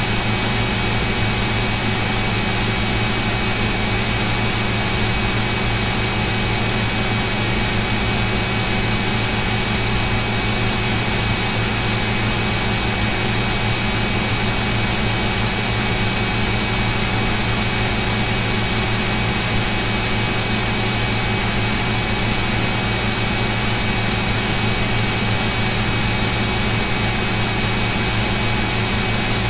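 Steady, unchanging hum and hiss with several fixed tones, with no breaks or events.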